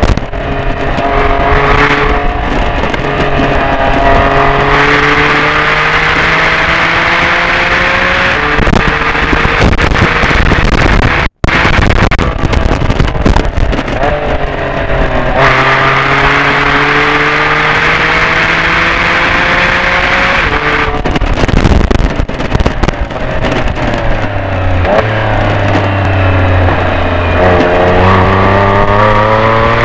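2009 Porsche 911 Carrera 4S's flat-six engine heard from inside the cabin at track speed, rising in pitch under full throttle and dropping back at each upshift, over road and wind noise. About three-quarters through it falls steeply under braking and downshifts to a low steady note, then climbs again as the car accelerates near the end. There is a momentary break in the sound about a third of the way in.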